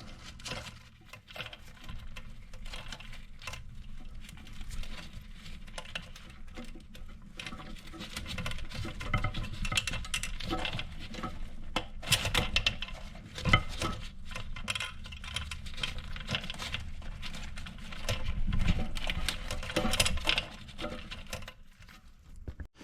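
Scattered clicks, taps and light rattles of hands working on toilet tank parts and fittings.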